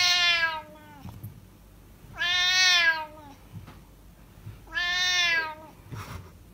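A Siamese-type cat meowing loudly three times, each long meow lasting just under a second, with about two seconds between calls.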